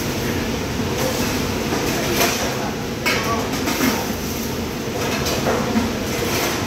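Steady noise of a commercial kitchen's ventilation and equipment, with a few sharp clinks and clatters of plates and utensils being handled.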